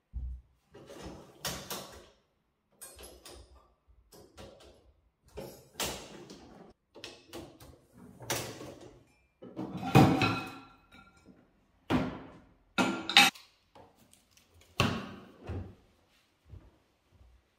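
Dishwasher racks and the cutlery tray sliding on their runners, with plates, bowls and utensils clinking and clattering as they are handled: a string of irregular knocks and clinks, loudest about ten seconds in.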